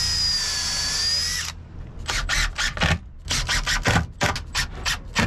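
Makita cordless drill running a bit into a small wooden block: a steady motor whine for about a second and a half that rises slightly just before it stops. A run of short, irregular clicks and knocks follows.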